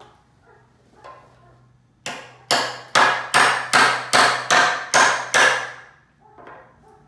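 A hammer driving a nail into a wooden board: about nine sharp, ringing strikes at a steady two to three per second, starting about two seconds in.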